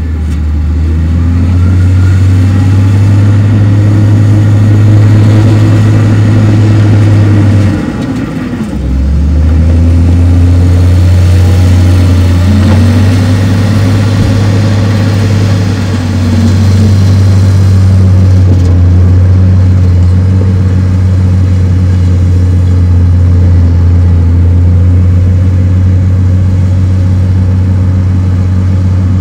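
Heavy construction machinery's diesel engine running steadily, its pitch rising and falling now and then as it works, with a brief dip about eight seconds in.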